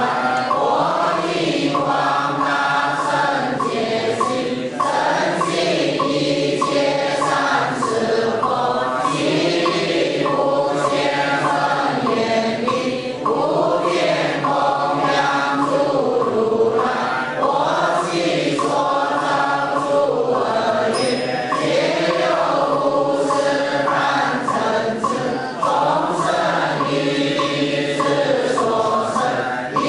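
A group of voices chanting a Buddhist liturgy in unison, a sustained melodic recitation with brief pauses for breath.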